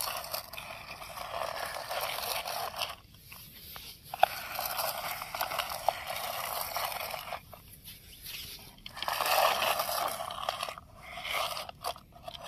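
Plastic toy train's wheels rolling and grinding over coarse sand as it is pushed by hand, in several pushes with short pauses between.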